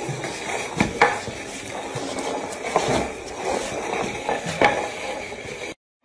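A plant pot dragged across a tiled floor by a small dog, scraping and knocking against the tiles, with a few irregular sharp knocks.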